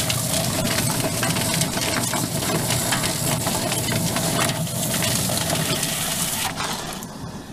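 Drum-style chicken plucker running, its motor spinning a scalded Cornish Cross chicken against the rubber plucking fingers while a garden hose sprays water into the tub: a steady motor hum under a dense rushing, slapping clatter. The sound drops away near the end.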